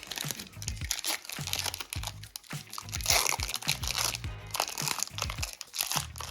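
Foil trading-card pack wrapper crinkling and rustling as it is handled and opened, loudest about three seconds in, over background music with a steady beat.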